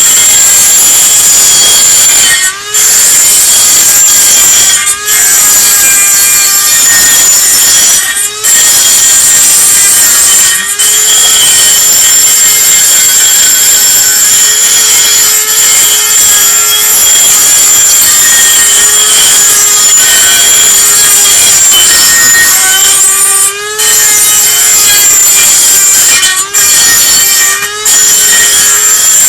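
Dremel rotary tool running with a loud, rasping noise and a steady high whine, dropping out for a split second several times. The noise is the loud running that the owner treats as the problem with the tool.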